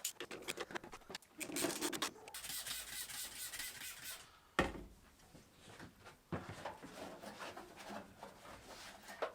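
Cloth wiping and scrubbing across a van's bare sheet-metal interior panels, with scattered knocks. There is a longer stretch of scrubbing in the middle, and two sharp thumps about four and a half and six seconds in.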